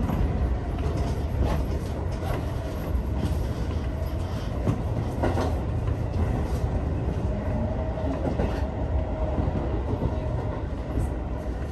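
Seibu 30000 series electric train running along the track, heard from the front car: a steady rumble of wheels on rails, with clacks at intervals as the wheels cross rail joints.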